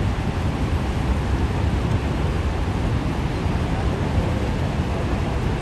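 Steady, unbroken roar of a large waterfall, a dense low rumble with hiss above it.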